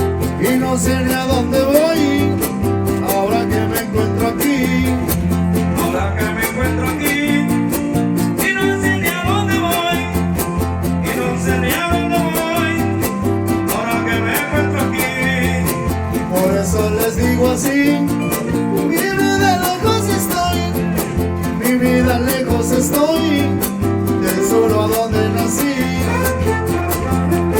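Huasteco string trio playing an instrumental passage of a huapango: steadily strummed jarana and huapanguera guitars with a violin line.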